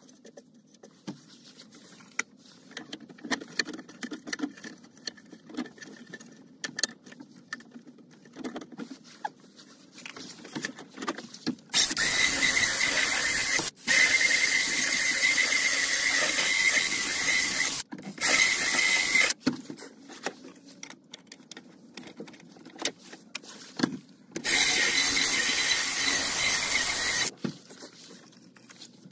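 An 18 V cordless drill whining as it drills into the plastic dash panel of a Land Rover Defender 90. It runs in three bursts close together about halfway through and once more near the end. Before that there are only light handling clicks.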